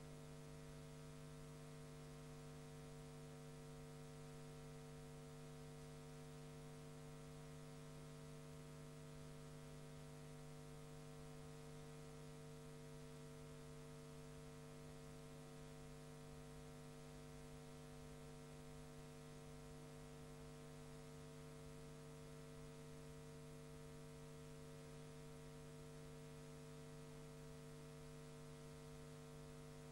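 Near silence: a steady low electrical hum with faint hiss on the soundtrack, with no other sound.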